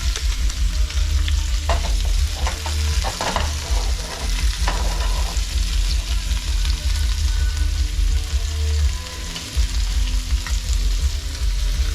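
Kahawai fillets sizzling and crackling as they shallow-fry in hot olive oil in a pan, over a steady low hum. A few short knocks come about two to four seconds in.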